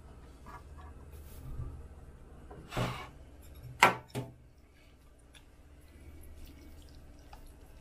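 Kitchenware knocking: three sharp clinks in about a second and a half, the middle one loudest, with faint small ticks around them.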